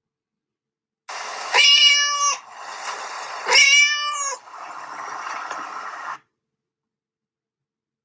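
Domestic cat meowing twice, each call about a second long and about two seconds apart, over a faint hiss of recording noise.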